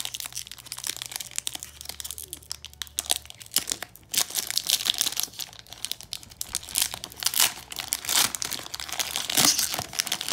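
Foil wrapper of a 2017 Leaf Draft football card pack crinkling and tearing as it is pulled open by hand. The crackle is irregular and gets busier in the second half.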